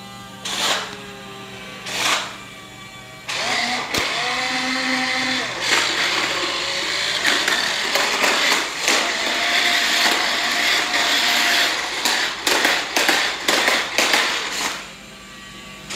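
Remote-control toy dinosaur: short electronic roar calls from its speaker, then from about three seconds in a loud whirring of its small motor mixed with roaring sound effects for about twelve seconds, before the short calls return at the end.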